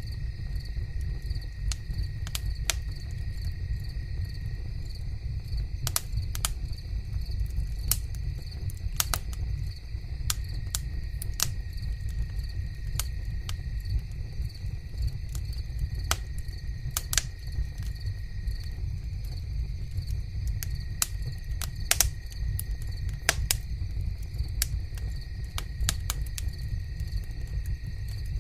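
Crickets chirping steadily, with irregular sharp crackles throughout and a constant low rumble underneath.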